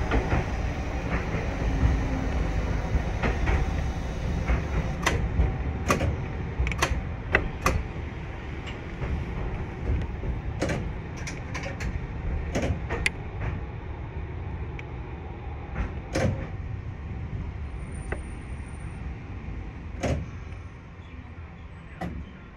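Toyohashi Railway streetcar running along its track: a steady low rumble with sharp clicks from the wheels passing over rail joints, growing quieter toward the end.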